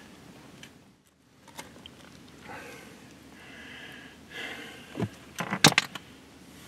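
Handling noises: scattered faint clicks, then a cluster of sharp knocks and rattles about five to six seconds in.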